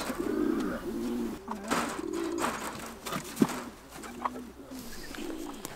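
Pigeons or doves cooing in a series of short, low hoots, with light clicks and rustling of animals moving on straw over wire mesh and one sharper click about three and a half seconds in.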